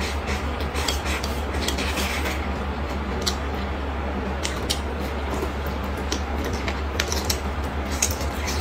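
Close-up eating sounds: chewing with scattered wet, crisp mouth clicks, and chopsticks clicking against the bowl, over a steady low hum.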